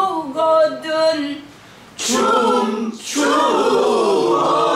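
Pansori singing in a call-and-response lesson: a woman sings a short phrase in the open-throated traditional Korean style, and about two seconds in a group of learners joins in, singing a long held line together.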